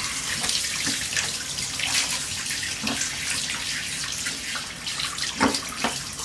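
Water running from a handheld bath sprayer onto a puppy in a bathtub, splashing off her coat into the tub, with a couple of sharper splashes near the end.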